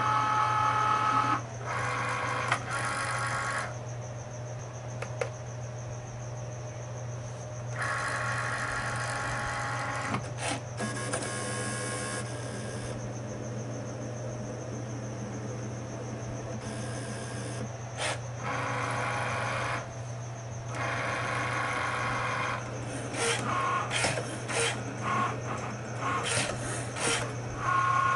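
Cricut Maker cutting machine running a job: its carriage and mat-roller motors whine in stretches of a few seconds, with quieter pauses between. Near the end comes a quick run of clicks and short whirs, over a steady low hum.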